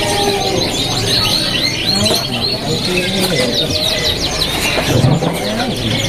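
Domestic canary singing in runs of quick repeated chirping notes. The bird is moulting but still in song. Other cage birds and faint market chatter sound behind it.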